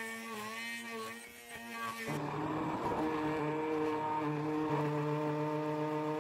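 Handheld immersion blender motor running steadily, puréeing chunks of kabocha squash and eggs in a tall beaker. About two seconds in its pitch drops and it gets louder, then holds steady.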